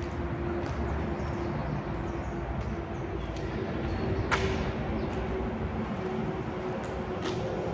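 Steady rumble of highway traffic, with a droning tone that comes and goes as vehicles pass, and a sharp click about four seconds in.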